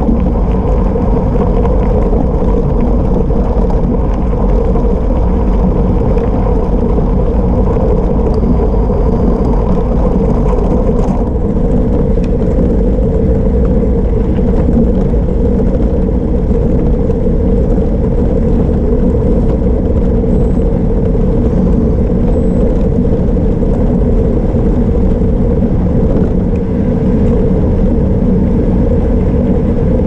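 Loud, steady rumble of wind on the camera and 700x40C Maxxis Rambler tubeless tyres rolling over a gravel road, on a gravel bike at speed on a downhill.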